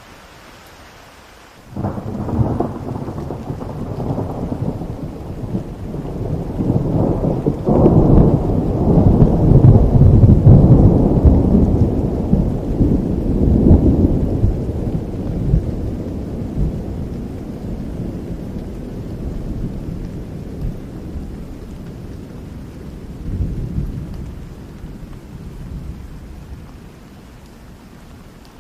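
Steady rain with a long peal of thunder. The thunder breaks in suddenly about two seconds in, swells to its loudest with a second surge around eight seconds, and rumbles away slowly until the rain is left alone near the end.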